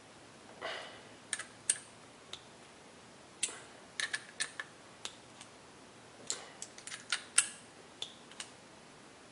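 Hex driver cranking down small 2 mm hex-head screws on an RC truck's differential case: scattered light clicks and ticks of the tool bit in the screw heads and the case shifting in the hand, coming irregularly, several in quick succession around four seconds in and again around seven seconds in.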